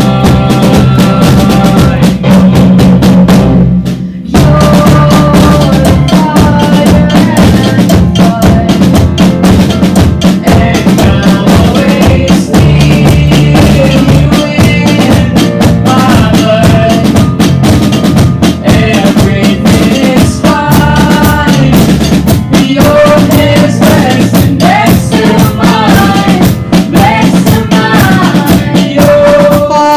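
A student band playing an instrumental passage of a pop song, with the drum kit's bass drum and snare prominent. The music drops out briefly about four seconds in, then comes back in full.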